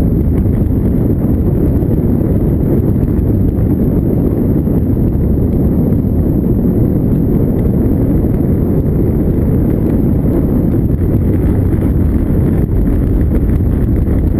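Steady, loud wind rumble on the microphone of a balloon-borne camera, a dull low roar without pitch.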